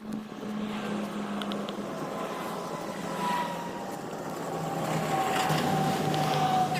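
A steady mechanical hum with a higher whine that slowly falls in pitch, with a few faint ticks.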